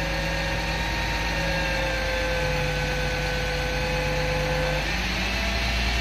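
Work truck's engine running steadily, with a whine that slowly sinks in pitch and stops about five seconds in.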